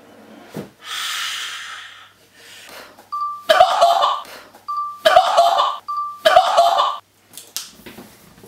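A person's excited, breathy vocal outbursts: a long rushing breath, then three short loud squeals in a row about a second and a half apart.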